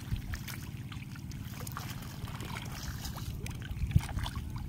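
Shallow water trickling in a muddy channel crowded with small fish, with faint scattered splashes and ticks, over a steady low rumble.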